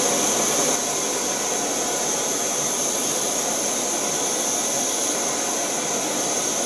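MSR WhisperLite Universal backpacking stove burning at full heat in liquid-feed mode, a steady rushing hiss from the burner flame under a pot of water that is near a rolling boil.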